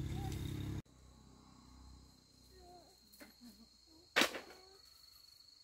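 A loud low rumble cuts off abruptly under a second in. Then comes quiet forest ambience with an insect's steady high-pitched chirring, and a single sharp crack about four seconds in.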